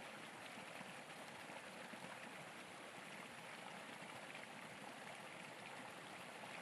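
Faint steady rushing noise with no distinct events, of the kind given by running water.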